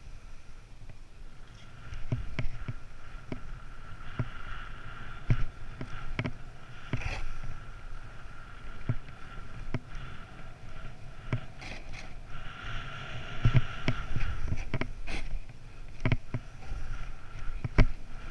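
Snowboard sliding and carving down packed snow, the board's scraping hiss over a low rumble of wind on the microphone, with frequent short knocks and thumps as it rides over bumps.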